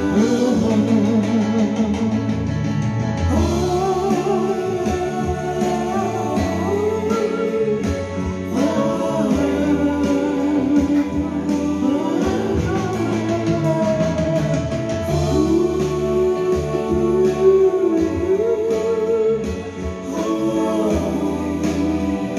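Karaoke singing: a man sings 'wo wo wo' lines through a microphone over a pop ballad backing track with guitar, his held notes wavering.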